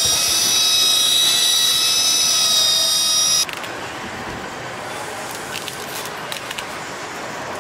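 Pneumatic hand tool with a foam pad, air-driven, running against an aircraft's painted skin with a steady high whine. It cuts off suddenly about three and a half seconds in. Then comes the quieter crinkling and crackling of plastic masking film being peeled off the paintwork.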